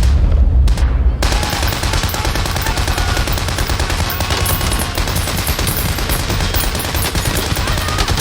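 Movie battle gunfire: dense, sustained fire from several automatic weapons and rifles at once, with a deep low rumble under the first second.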